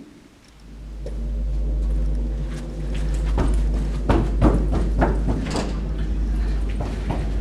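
Low, steady droning score with several sustained tones layered over a deep hum, rising in from silence. From about two and a half seconds in, quick irregular thuds of running footsteps join it.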